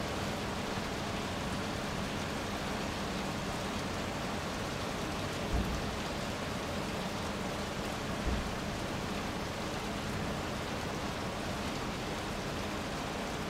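Steady rain falling, an even hiss, with two brief low thumps about five and a half and eight seconds in.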